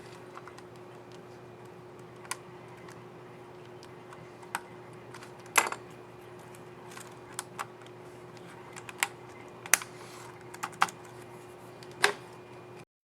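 Plastic clicks of laptop keycaps on a Samsung Series 3 NP300E5E keyboard being pressed: about ten irregular single clicks, the loudest a little over five seconds in. A faint steady hum runs underneath, and all sound cuts off just before the end.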